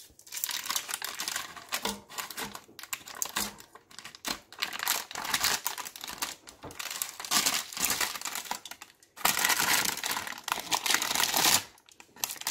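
Parchment paper crinkling and rustling in irregular spurts as it is peeled back off a baking pan of freshly baked crispy chicken skin, loudest for a couple of seconds near the end. Light clicks of metal tongs come in between.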